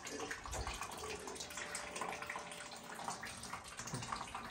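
Liquid whey trickling and dripping faintly from fresh cheese curd into a basin, with small splashes.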